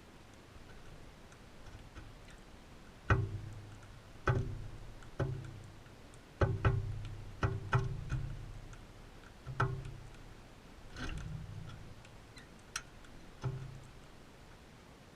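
Irregular hollow knocks, about ten of them, each with a short low ring, with faint sharp clicks in between: feeding parrots' beaks striking and pecking at the feeder close to the camera.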